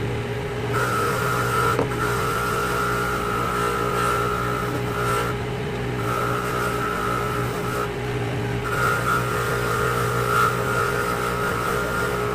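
Bench grinder motor running with a steady hum, with a scrubbing, grinding noise on top while a Mazda 13B rotor is pressed to the wheel to clean its face. The contact noise comes in three stretches of about four, two and three seconds, with short breaks as the rotor is lifted and turned.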